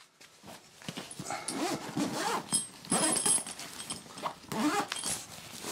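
A dog making several short vocal sounds that slide up and down in pitch, while the zip of a fabric tool bag is pulled open.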